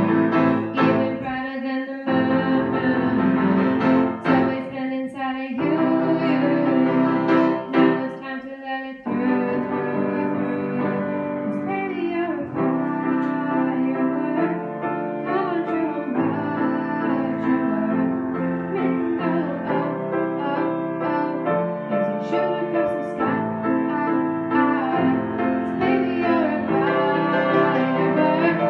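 A girl singing while playing chords on a grand piano. The music thins briefly three times in the first nine seconds, then runs on with steady chords.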